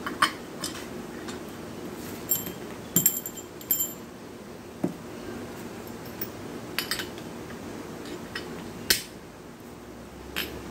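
Small metal alternator parts and screws clinking and tapping on a workbench as they are handled: scattered sharp clicks, a cluster of them with a brief metallic ring about two to four seconds in, over a faint steady hum.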